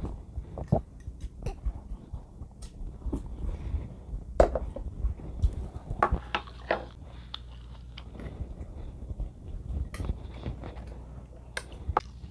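Close-miked eating: chewing and mouth sounds of a person eating rice and soup, with sharp clicks of a spoon and chopsticks against bowls. The loudest clicks come about four and a half and six seconds in.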